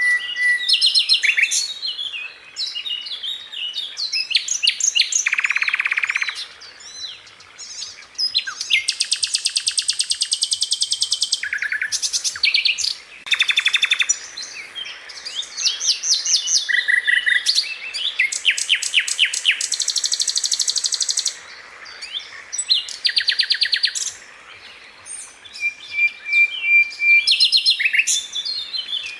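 Sikatan londo flycatcher singing a fast, varied song of high-pitched rattling trills, buzzy phrases and sharp chips, with the odd thin whistled note.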